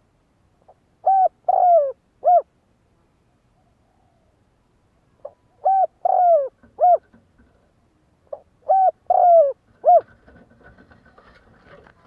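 Spotted dove cooing: three phrases, each a short lead-in note followed by three coos, the middle coo longest and falling in pitch. After the third phrase comes faint scratchy rustling.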